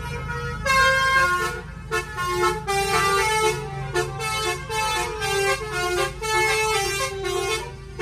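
Basuri telolet horn, a musical car horn, playing a melody of short stepped notes. It starts about a second in and runs on with short breaks.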